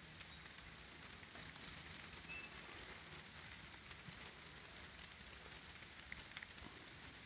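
Light rain falling steadily, with faint high bird chirps over it, including a quick run of about seven chirps about a second and a half in.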